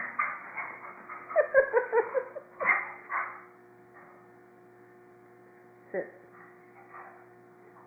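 A dog whining in a quick run of short, high yips about a second and a half in, with a single sharper yelp near the six-second mark, over a steady electrical hum.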